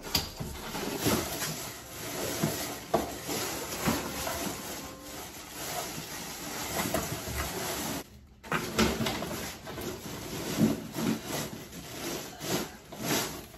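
Artificial Christmas tree branches rustling and scraping as they are pulled out of a cardboard box and brush against it, with small knocks. It drops out briefly a little after halfway.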